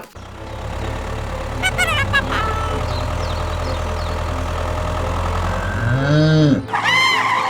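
Steady low engine drone like a small tractor motor running, which cuts out abruptly near the end. Sweeping rising-then-falling glides of an added sound effect come just before it stops.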